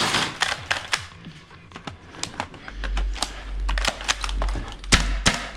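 Airsoft gunfire indoors: rapid, irregular sharp cracks of airsoft rifle shots, several close together. A deep bass drone of background music comes in about halfway.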